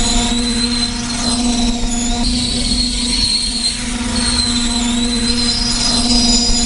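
Coal hopper cars of a freight train rolling past with steady brake and wheel squeal in several high pitches over a low rumble and hum: the train has gone into emergency braking after a coupler knuckle broke and the train separated.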